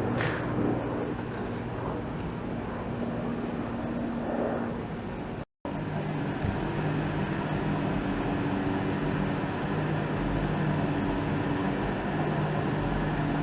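A train standing or moving slowly at a station platform, giving a steady mechanical hum with a low droning tone. The sound drops out completely for a moment about five and a half seconds in.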